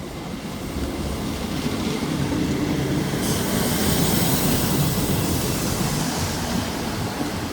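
Class 158 diesel multiple unit moving through the platform, its diesel engine and wheels on the rails swelling to a peak about four seconds in, with a burst of hiss lasting about two seconds in the middle.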